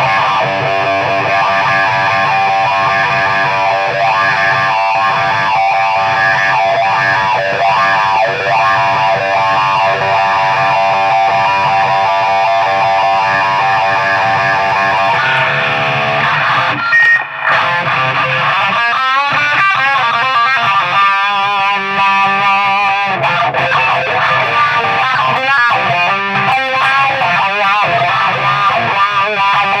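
Distorted electric guitar played through a Cry Baby wah pedal: held chords ring in the first half, then past the middle the pedal is rocked back and forth, so the tone sweeps up and down.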